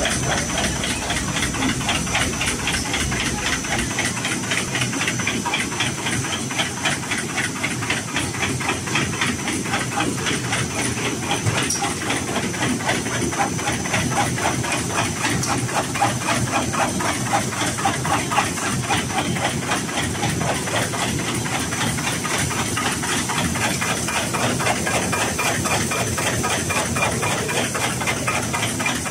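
CNC knife pleating machine folding filter media, its pleating knife clattering in a fast, even rhythm over a steady hiss and a thin high whine.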